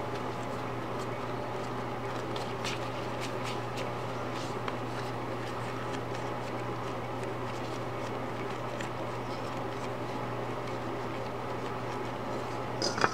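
Steady machine hum, with faint soft ticks and taps of hands pressing and shaping sticky tapioca dough over a stainless steel bowl. A short louder burst comes right at the end.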